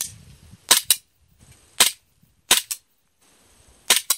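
FNX-45 gas blowback airsoft pistol firing a string of sharp pops: about five shots, irregularly spaced, some heard as quick doubled cracks.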